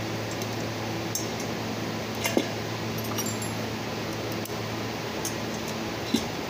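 Light metallic clinks of hand tools and bolts being handled against the aluminium EGR valve assembly, the sharpest about two and a half seconds in and another near the end, over a steady electric motor hum.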